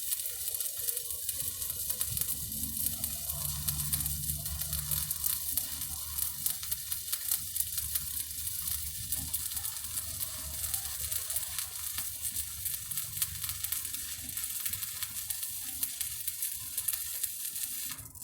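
Shielded metal arc (stick) welding with a 7018 electrode: the arc crackles and sizzles steadily, then cuts off suddenly at the very end as the arc is broken.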